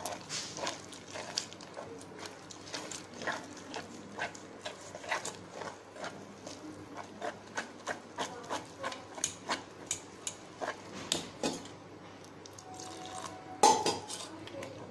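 Wire whisk beating thick bajji batter in a stainless steel saucepan: a steady run of short clicks and scrapes, about two a second, as the wires hit the pan. The clicking pauses briefly and is followed by a single louder knock near the end.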